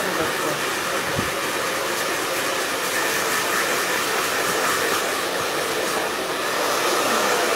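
Hand-held hair dryer running steadily, a rush of air with a faint steady whine from its motor.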